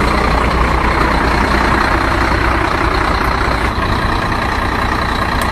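Steady truck engine running for a six-wheeled WPL B36 RC military truck as it crawls through mud. The level holds even, with no revving up or down.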